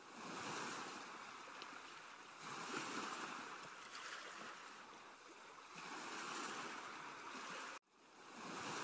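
Faint ocean surf: waves washing onto a beach, swelling and fading in about four surges.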